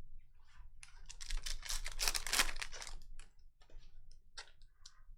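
Foil trading-card pack being opened and its cards handled: a dense run of crackling and clicking for a couple of seconds, then scattered sharp clicks.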